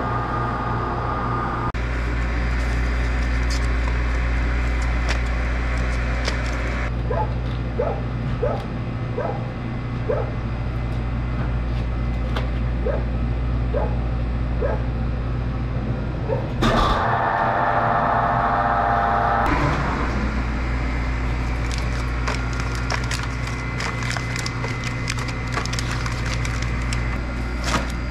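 Chamber vacuum-packing machine running with a steady low hum, with plastic vacuum bags crackling as they are handled. A louder rush of noise lasts a few seconds just past the middle.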